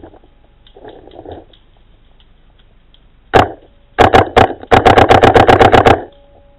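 Paintball marker firing: a single shot, then a few quick shots, then a rapid string of about a dozen shots at roughly ten a second.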